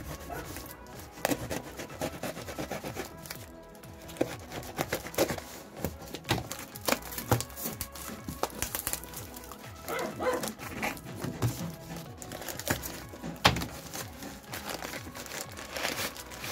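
Knife cutting and scraping through packing tape, with tape peeling and plastic wrapping crinkling in irregular crackles and rustles as the taped parcel is opened. Background music plays underneath.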